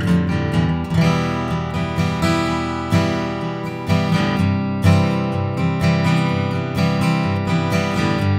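Gibson Hummingbird Sustainable dreadnought acoustic guitar, with walnut back and sides, played unaccompanied: chords strummed and picked, a fresh chord struck about once a second and left to ring.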